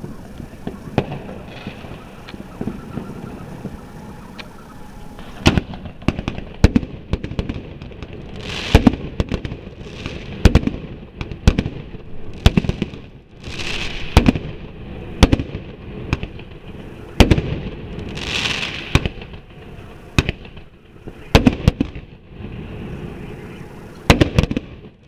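Fireworks going off: from about five seconds in, a run of sharp bangs at irregular intervals of roughly a second, several followed by a crackling hiss. Before that there is a steady low background.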